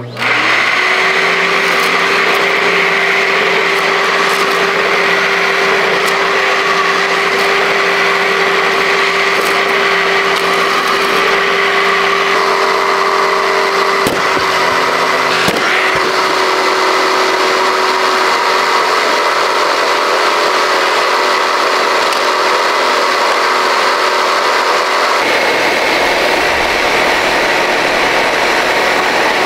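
Dirt Devil Ultra MVP vacuum cleaner switched on, its motor spinning up within the first second and then running steadily with a loud whine and rush of air. A couple of sharp clicks come about 14 and 16 seconds in, and the sound changes about 25 seconds in.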